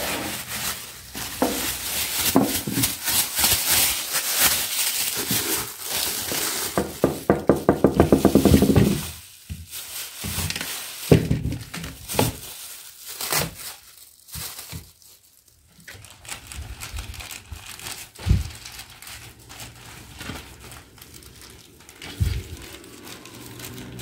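Thin plastic bags crinkling as they are crumpled and handled, dense and loud for about the first nine seconds with a quick rhythmic run near the end of that stretch. After that, scattered light knocks and taps.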